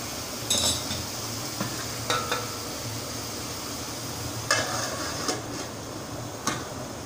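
Ridge gourd sizzling softly in a metal pot over a gas burner, with several sharp metal clinks against the pot, then a clank near the end as the metal lid is set on.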